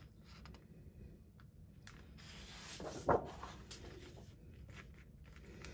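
Sheets of thick patterned scrapbook paper being handled and turned over, a soft rustle and slide of paper, with one sharper flap or tap about three seconds in.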